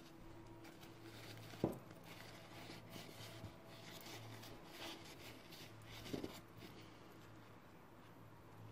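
Faint rustling of paper napkins being folded and pushed into a drinking glass, with a soft tick about one and a half seconds in and another around six seconds in.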